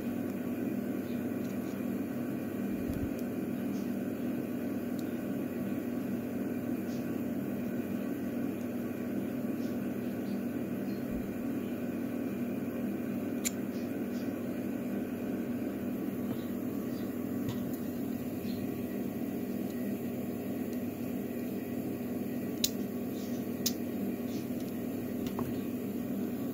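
A few small sharp clicks of a thin metal pick working on the parts of a dismantled Evva DPS lock cylinder, over a steady background hum.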